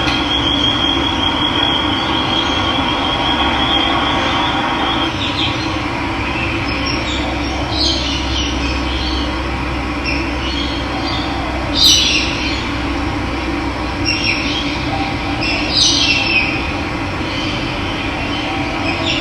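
Steady rush of running water, with birds calling over it: a high wavering trill in the first few seconds, then several short chirps, the loudest about two-thirds of the way through.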